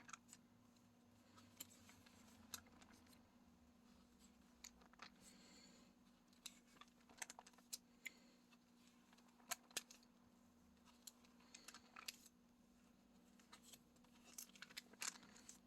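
Near silence: faint scattered clicks and light rustles of handling, in small clusters, over a faint steady hum.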